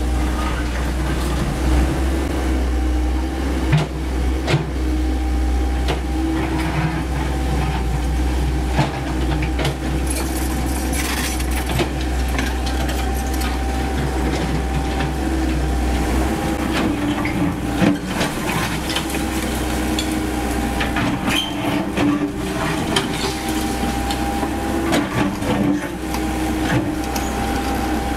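Komatsu PC78US mini excavator's diesel engine running steadily with a low rumble that weakens about halfway through, under frequent sharp knocks and crashes of breaking brick and concrete rubble.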